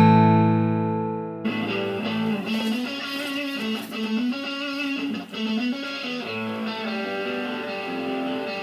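Guitar music: a strummed chord rings and fades, then about a second and a half in a fuller guitar passage with a moving melody line starts.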